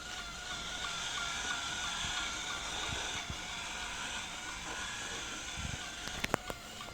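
Robot vacuum running with a steady whine from its motor and brushes, with a few sharp clicks near the end.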